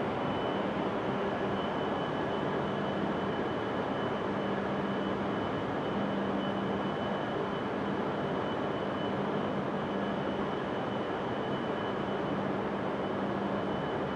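Steady hum of a Shinkansen platform with E5 series trains standing alongside: a constant low drone and a thin high whine over an even rushing noise, unchanging throughout.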